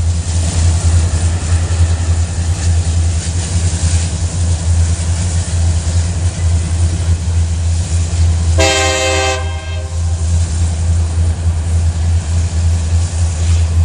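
Freight cars of a Union Pacific manifest train rolling past on the rails with a steady low rumble. About nine seconds in, a short horn blast of under a second sounds from the locomotives far ahead.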